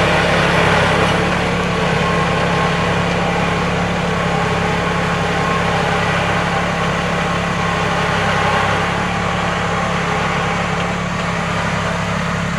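Kubota L3901 tractor's diesel engine idling steadily.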